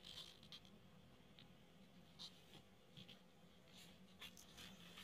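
Faint papery scrapes and soft taps of trading cards being slid off a stack and flipped through by hand, a handful of short strokes spread through, over low room hum.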